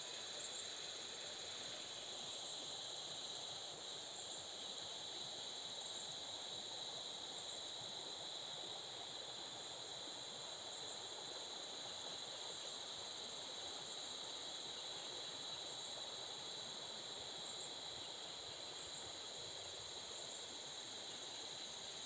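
Steady chorus of insects, a constant high-pitched buzz in two bands with faint regular pulses, over a soft even rush of stream water.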